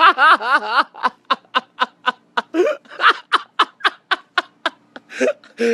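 A person laughing: a high, swooping vocal sound for the first second, then a long run of quick, short laugh pulses, several a second.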